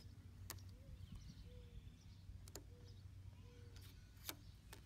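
Near silence: faint scattered ticks as transfer tape is slowly peeled off a vinyl sticker laid over a car emblem, over a low steady hum.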